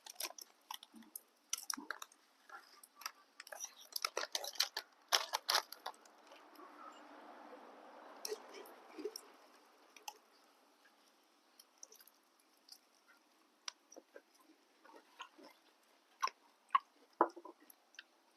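Clicks and light knocks of utensils and containers as boat noodles are packed into a tiffin carrier, dense at first and sparse later, with a soft rushing sound in the middle.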